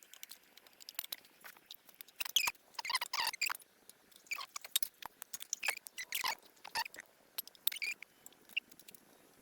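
Popcorn kernels popping in a covered pot: scattered, irregular pops, with denser runs of popping about two to three seconds in and again around six seconds.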